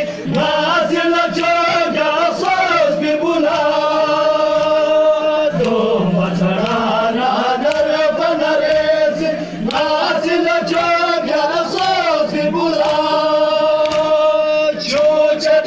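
A crowd of men chanting a Balti noha, a Shia mourning lament, together in long held, wavering lines. Sharp slaps from chest-beating (matam) run under the singing.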